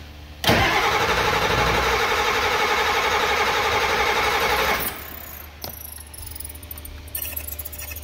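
7.3L Power Stroke V8 diesel cranking on its starter for about four seconds, then stopping suddenly, during a deadheaded high-pressure oil pump test; the pump builds not even 1500 psi, so it needs replacing. A single click follows, then a few faint rattling clicks near the end.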